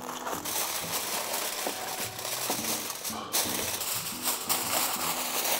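Aluminium foil rustling and crinkling as it is torn off the roll and spread and folded over a steel pan, over background music.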